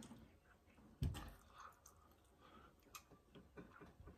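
Quiet handling of a seafood boil: one soft thump about a second in, then scattered faint clicks as the snow crab legs are handled.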